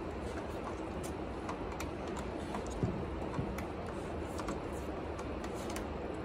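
Light, irregular clicks and ticks of a plastic cable drag chain and its wires being handled, with two small knocks about three seconds in, over a steady background hum.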